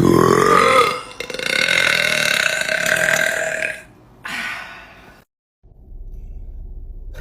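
A woman burping loudly: one long, drawn-out burp of nearly four seconds with a brief break about a second in, then a shorter burp.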